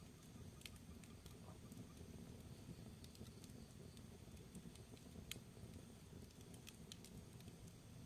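Quiet wood fire burning in a fireplace: a low steady rumble of flames with scattered sharp crackles and pops from the burning logs, the loudest a little past halfway.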